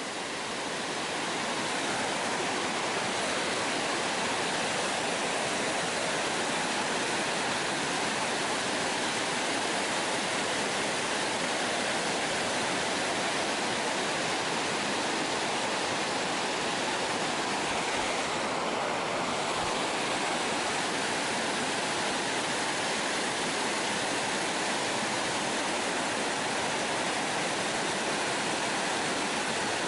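Creek water pouring over a low-head dam: a steady, even rush.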